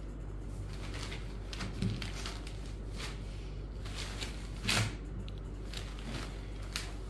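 Cotton sarees being handled on a wooden table: brief rustles and brushing of folded cloth, with a louder thump a little past halfway, over a steady low hum.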